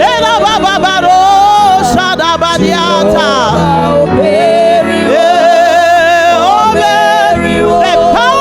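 Music with a voice singing, its pitch wavering and bending heavily, over steady held chords.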